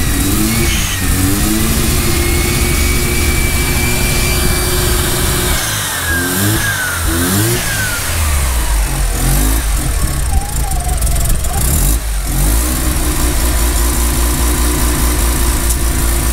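Mazda RX-7's bridge-ported 13B rotary engine running, its revs rising and falling a couple of times before it settles into a steady idle about eight seconds in. It is struggling to hold idle after running low on coolant, which the owners put down to the coolant temperature sensor throwing the timing off, or an intake leak.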